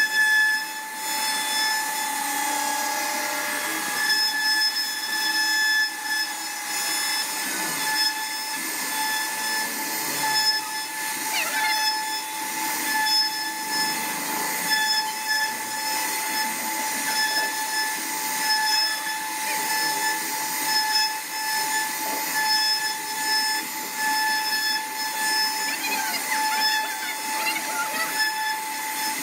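CNC wood router spindle running with a steady high whine as it carves wood, over a continuous rasping hiss from the cutting.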